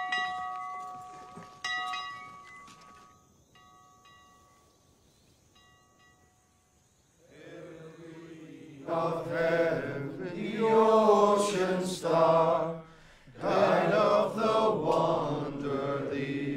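A large hung church bell is struck twice, its tones ringing on and slowly dying away. From about halfway, a group of men's voices sings a slow hymn-like chant together.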